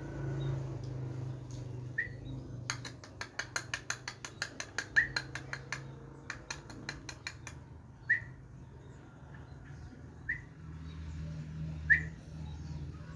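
Yellow-vented bulbul (trucukan) giving short, single chirps, one every two or three seconds. In the middle comes a quick run of sharp clicks, several a second, lasting about four seconds.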